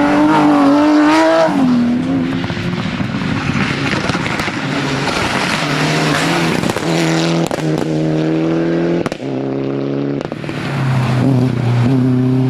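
Rally car engine at high revs, its pitch climbing and dropping with gear changes as the car drives through the stage. There is a short dip about nine seconds in, then a steadier engine note.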